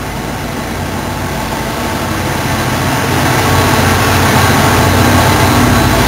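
NJ Transit passenger train passing at close range: Comet coaches rolling by while the diesel engine of GP40PH-2B locomotive 4213 draws near. The engine drone grows louder and levels off about halfway in.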